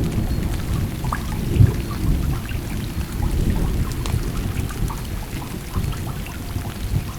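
Rain falling on a Jeep's roof and windshield: a dense patter of individual drops over a heavy low rumble.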